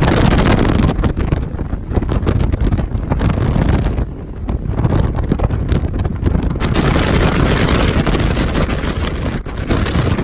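Wind buffeting the microphone over a motorboat under way. The rushing is gusty and heaviest at the low end, and turns brighter and more hissy about two-thirds of the way through.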